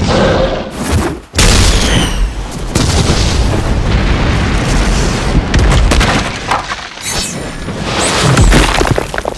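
Anime battle sound effects: heavy booms and explosion blasts. A sudden loud blast about a second and a half in starts a long, dense rumble, and another deep boom comes near the end.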